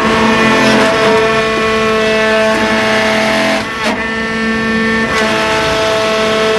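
RUF hydraulic wood briquette press running: a steady, pitched hum with a few sharp clunks. About four seconds in, the hum dips briefly with a clunk.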